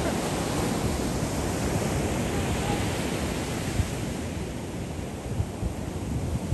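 Surf rushing on the beach with wind buffeting the microphone in low, gusty rumbles. The higher hiss of the surf eases off about two thirds of the way through.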